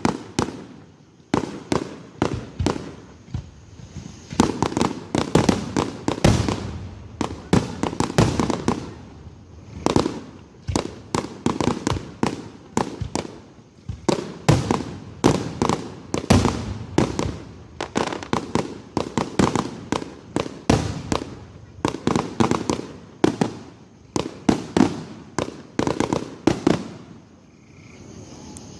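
Fireworks finale: a rapid, dense barrage of aerial shell bursts, many bangs a second with overlapping booms and crackle, easing off in the last second or two.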